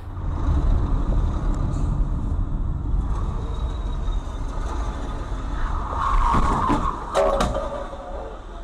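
Steady in-cabin road and engine rumble of a car driving on a city street, growing louder around six seconds in, then two sharp knocks a little after seven seconds as a white sedan collides with the car ahead.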